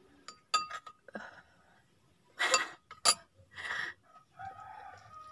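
Metal spoon clinking against a ceramic bowl, a sharp ringing clink about half a second in, followed by soft eating sounds and a couple of louder breathy bursts around the middle, as of a short laugh.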